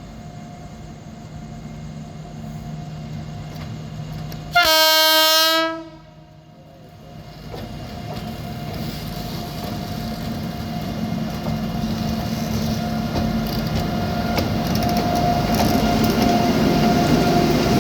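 Twin coupled WAG-9 three-phase electric freight locomotives: one ear-piercing horn honk lasting just over a second, about four and a half seconds in. After it, the locomotives' running noise and wheel clatter grow steadily louder as they approach.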